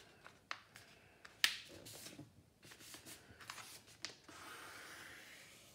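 A sheet of paper being folded by hand: faint crinkles and taps as the corner is laid over, with one sharper snap about a second and a half in. Near the end, a steady soft hiss of fingers sliding along the fold to crease it.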